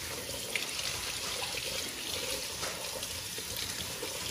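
Pull-down kitchen faucet running steadily, its stream splashing over fish fillets being rinsed by hand and into a stainless steel sink.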